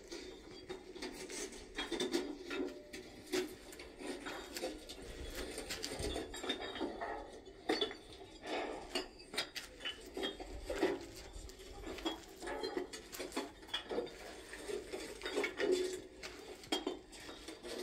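A jumble of irregular clicks, clinks and knocks, close together throughout, with no steady rhythm.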